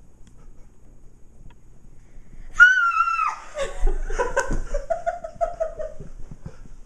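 A girl's sudden high-pitched scream of delight about two and a half seconds in, held briefly and then falling away into excited squealing and laughter.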